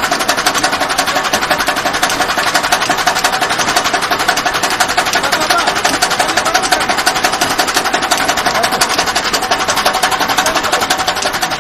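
A motor-driven machine running steadily with a fast, even clatter.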